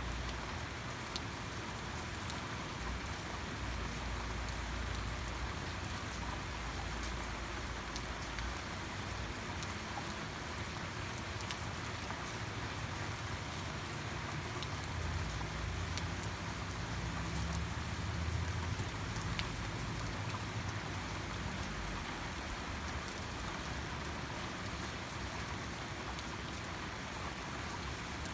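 Steady rain falling, an even hiss with many scattered drop ticks. A low rumble swells through the middle.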